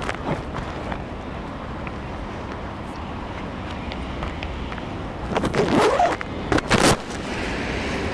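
Steady street traffic noise, broken by two loud, brief noises about five and a half and six and a half seconds in.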